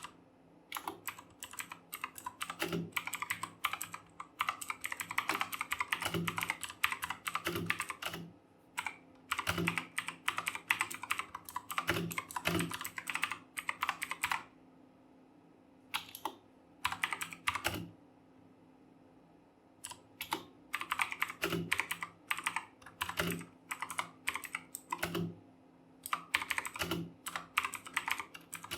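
Fast typing on a mechanical keyboard with clicky Kailh Blue switches: rapid clicking in runs of a few seconds, with short pauses between them.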